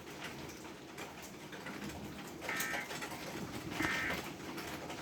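Emergency Alert System end-of-message data tones: two short squawks of digital tones about 1.3 seconds apart, starting about two and a half seconds in, over a steady crackling hiss. The squawks signal the end of the severe thunderstorm warning broadcast.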